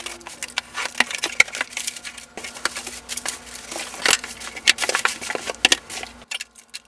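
Cardboard shipping box being opened by hand: packing tape slit with a knife, flaps pulled open, and bubble wrap and cardboard rustling and crackling as the inner box is lifted out, a dense run of crackles and scrapes that thins out near the end.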